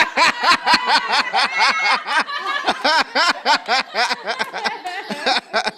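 A person laughing in a long, unbroken run of short "ha" pulses, about five a second, breaking off just before the end.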